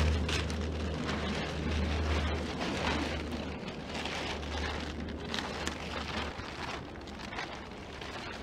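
Plastic tarp rustling and crackling as it is handled and spread. Under it runs a low steady rumble that stops about six seconds in.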